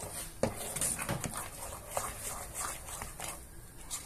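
Spatula stirring thick mashed-potato purée in a pot: irregular wet squelches and scrapes, several a second.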